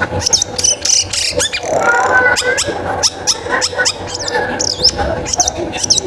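Long-tailed shrike (cendet) singing: a fast, varied run of sharp chattering notes, squeaks and quick whistled glides, the song of an actively singing bird.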